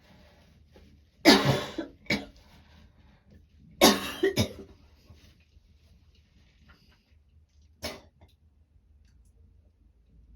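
A woman's light cough from a cold coming on, with a sore throat. There are two bouts of coughing, each a strong cough followed by shorter ones, then one more short cough later on.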